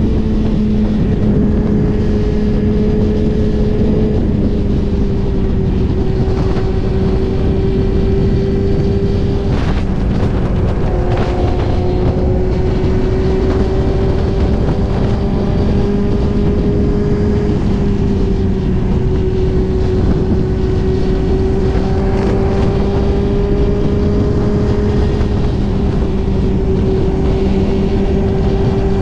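Suzuki GSX-R1000's inline-four engine running at a steady highway cruise, its pitch dipping slightly a few times, under heavy wind and road noise.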